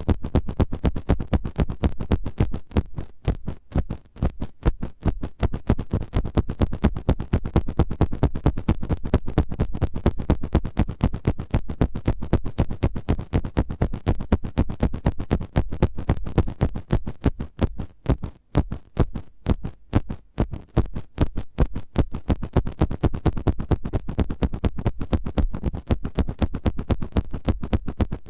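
Close-miked ASMR trigger: rapid scratching strokes rubbed straight on the microphone, several a second, each with a deep thud.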